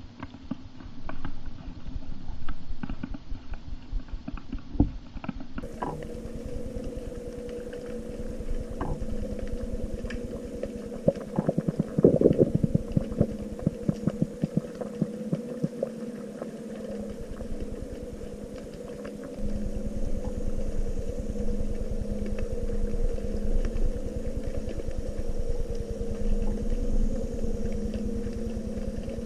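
Underwater harbour sound picked up by the camera: a dense crackle of small clicks, louder in a run around the middle. About six seconds in, a steady low mechanical drone with a rumble beneath it comes in, typical of a boat's engine heard through the water.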